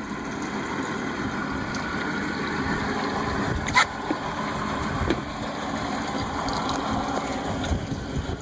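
Port outboard motor idling steadily, running quiet and smooth with none of the throaty knock of its starboard twin. A single short click sounds about four seconds in.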